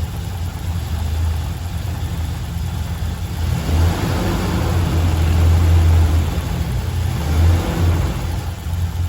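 Ford E450 bus engine running unevenly, with a steady low hum that grows louder and rougher about a third of the way in and swells a couple of times before easing. This is the erratic running of an engine whose fuel pressure won't hold and bleeds down; the owner suspects the fuel pump.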